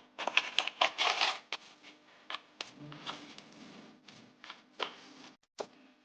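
Small plastic keyboard parts clicking and clattering, with rustling between, as keyboard stabilizers are handled. A quick run of sharp clicks comes at the start, quieter rustling in the middle, and more scattered clicks near the end.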